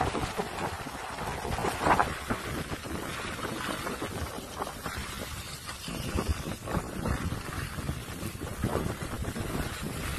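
Wind buffeting a microphone carried by a skier going downhill, mixed with the hiss and scrape of skis sliding over snow.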